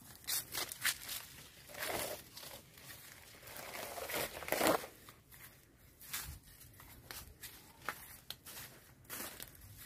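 Footsteps on a dry dirt path with irregular rustling and crinkling, loudest about two seconds in and again around four and a half seconds in.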